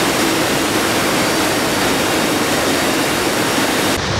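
Loud, steady roar of a military transport plane's engines and rushing air at its open rear cargo ramp. Near the end it gives way to a lower wind rumble.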